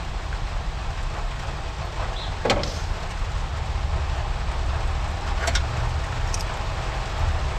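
Steady rain falling, over a low rumble. A few small clicks and knocks break through, the sharpest about two and a half seconds in.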